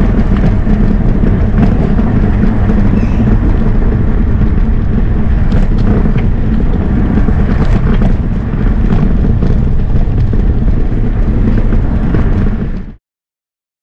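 Steady, deep road and wind noise from a moving, low-mounted camera: wheels rolling over brick paving, with wind on the microphone. It cuts off suddenly near the end.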